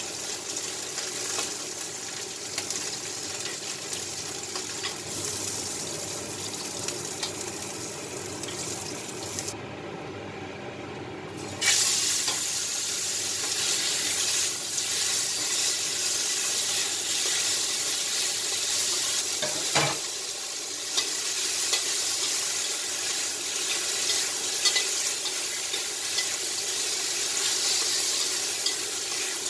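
Prawns and then squid sizzling as they fry in oil in a steel wok, with a spatula scraping and stirring against the pan. The sizzle gets louder after a cut about twelve seconds in.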